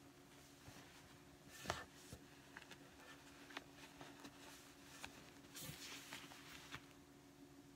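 Faint rustling of a shibori-dyed obiage being gathered and twisted by hand, with scattered small ticks and one sharper tap a little under two seconds in, over a low steady hum.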